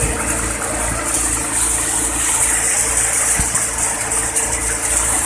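Annapurna tokri-model pulse and chickpea thresher running steadily while threshing chickpea plants: a steady mechanical drone with a loud, even rushing hiss over a low hum.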